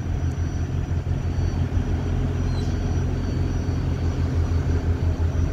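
Steady low rumble of a car ferry's engines under way.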